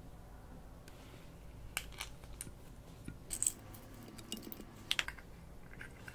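Small hard plastic pieces, such as flower beads, clicking and tapping against a glass dish: a scattering of light, sharp clicks, with the loudest about three and a half seconds in and a close pair about five seconds in.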